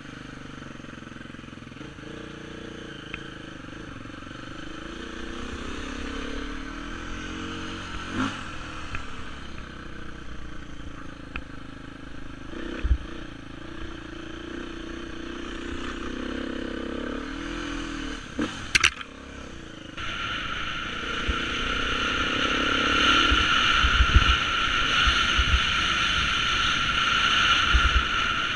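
Beta 350 enduro motorcycle engine running as it is ridden, the revs rising and falling again and again with gear changes and throttle. It grows louder about two thirds of the way through as the bike speeds up over rough ground, with a steady rush of wind and a few knocks and thumps from bumps.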